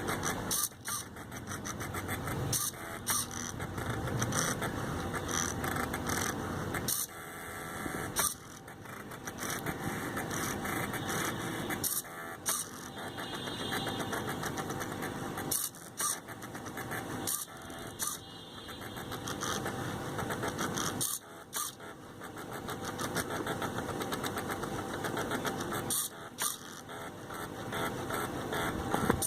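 Stepper motors of a home-made CNC machine driving its axes as it writes. The drone runs in stretches of a few seconds, stops briefly about eight times, and has sharp clicks scattered through it.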